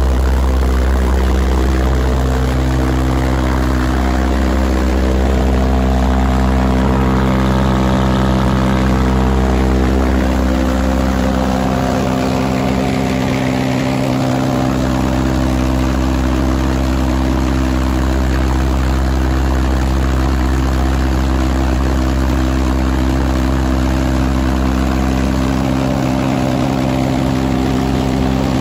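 A Dragon pulsejet engine rated at about 275 pounds of thrust running steadily at full power: a loud, continuous, low-pitched drone with a rich stack of overtones.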